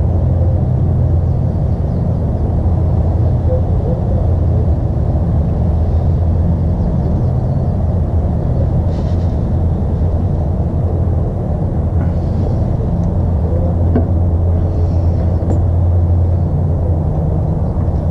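A steady low rumble with a few faint clicks over it.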